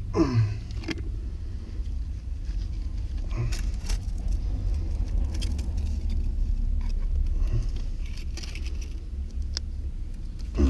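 Handling noise of ABS pipe fittings and a can of ABS cement worked by gloved hands: scattered clicks and rattles over a steady low rumble, with a short falling squeak at the start.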